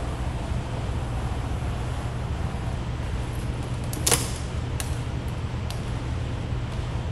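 Steady low background hum. About four seconds in comes one short, sharp crackle, the loudest sound here, and two faint ticks follow: vinyl stripe film being lifted and pressed by hand on a car door panel.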